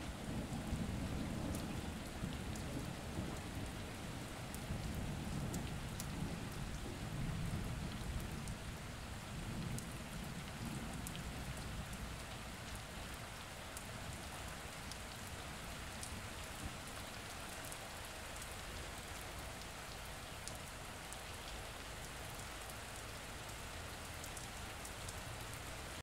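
Steady rain falling, with fine drop ticks, under a low rumble of thunder that dies away about halfway through, leaving the rain alone.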